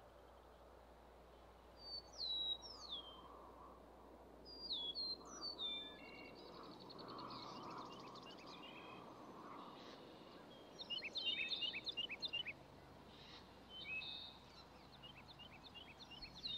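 Songbirds singing in a dawn chorus over a faint steady hiss. There are clear downward-slurred whistles about two and five seconds in, then chirps and a rapid trill from about eleven seconds, with more scattered chirps near the end.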